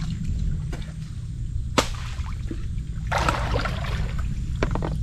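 Water sloshing and splashing, with a short splash about three seconds in, over a steady low rumble.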